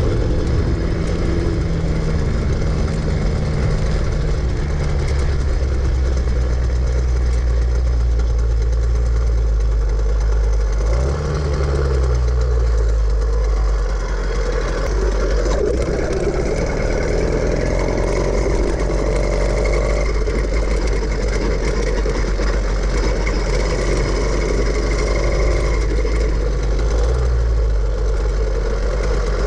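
Small gas engine of a motorized bicycle running steadily while being ridden, its pitch shifting briefly about eleven seconds in.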